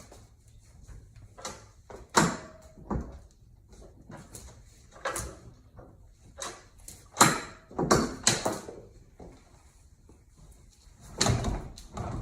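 Irregular knocks and clunks of hard parts being handled while a Minn Kota Ultrex trolling motor is being undone, with a cluster of louder clunks a little past the middle and another near the end.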